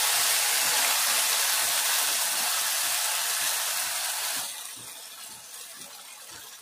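Hot oil with cumin and mustard seeds sizzling in a kadhai as a wet onion-tomato-cashew paste is poured in from a mixer jar; a loud, even hiss that drops off sharply about four and a half seconds in and goes on quieter.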